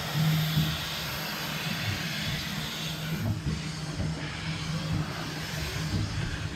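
A small 0-6-0WT narrow-gauge steam well tank locomotive running along the track, picked up at the front of the engine. A steady low hum and irregular low knocks sit under an even hiss.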